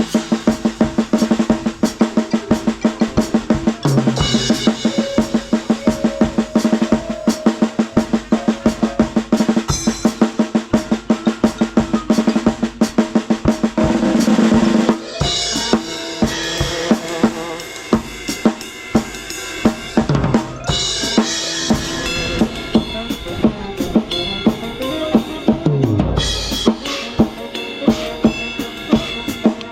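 Drum kit played close up, with a fast steady beat of snare and bass drum hits, over the marching band's held wind chords. About halfway through the big held chord cuts off and the drumming carries on with a lighter groove, and a low swell rises near the end.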